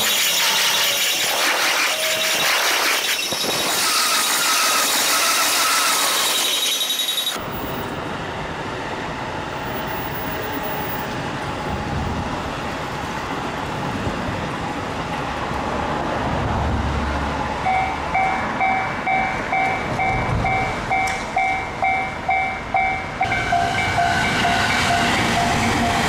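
Trains running past a level crossing, wheels clattering on the rails. From about two-thirds of the way in, the Japanese crossing warning bell rings in an even beat of about two rings a second.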